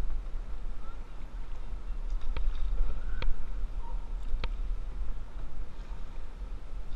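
Paddle strokes from a solo whitewater canoe on calm water, with three short sharp clicks in the middle, over a steady low rumble.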